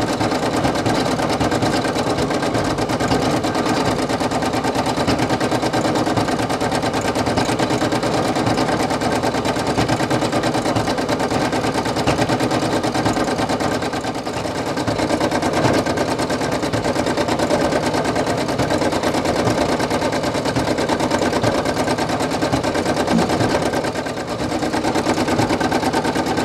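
Brother PE800 home embroidery machine stitching out a patch: a steady, rapid rattle of the needle going through the fabric over the hum of its motor and moving hoop.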